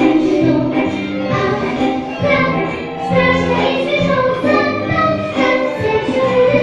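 A young girl singing a song into a handheld microphone, with instrumental accompaniment.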